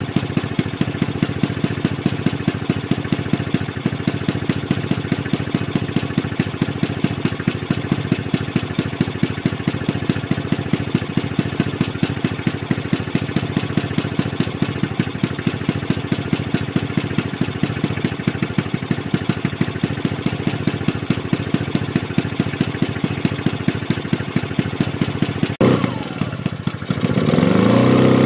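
A Fuji Rabbit S301 scooter's 125 cc forced-air-cooled two-stroke engine idling with an even, steady beat. After a brief break near the end, the engine is revved up and runs louder.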